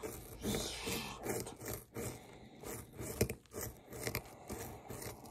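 A hand digging tool scraping and chipping at a hard dig-kit block to dig out a buried ruby, in repeated short, gritty strokes about three a second, with bits crumbling off.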